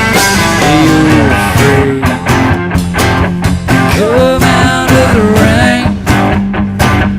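Live band playing an instrumental break: an electric lead guitar with bending notes over bass and drums.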